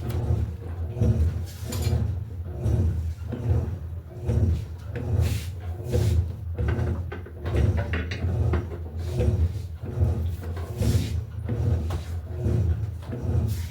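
Electrolux LTE08 top-loading washing machine agitating a load of clothes in water, a rhythmic churning and sloshing with a pulse a little more than once a second and light knocks with each stroke.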